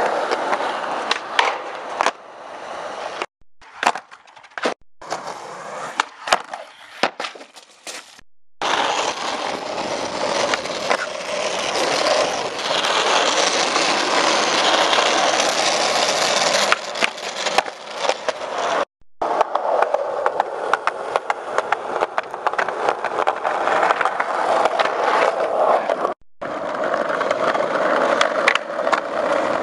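Skateboard wheels rolling on concrete, with sharp wooden clacks of the board popping and landing. The sound breaks off abruptly several times between short clips.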